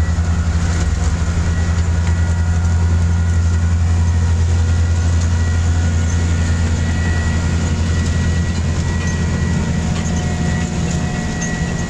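ROPA Tiger self-propelled sugar beet harvester running steadily as it drives by, a deep diesel drone with a thin high whine and mechanical rattling over it, easing slightly near the end.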